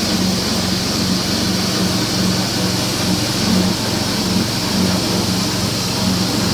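Pellet crumble machine running steadily, with a loud, even hum that pulses in the low range.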